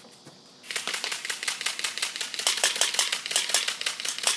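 A rapid, even run of sharp clicks, about ten a second, starting under a second in and stopping just after the end.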